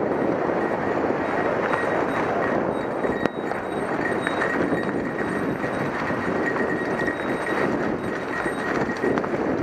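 Mountain bike rolling over a rough trail: steady tyre noise and rattling of the bike, with a sharp knock about three seconds in.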